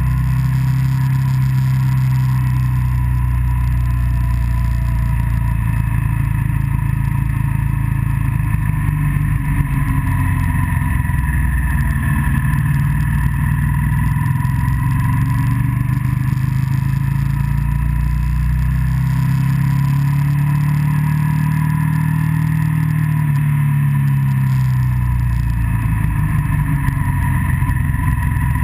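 Motorcycle engine running steadily on the move, its pitch dipping and then climbing again with the throttle about two-thirds of the way through, over wind rush on the microphone.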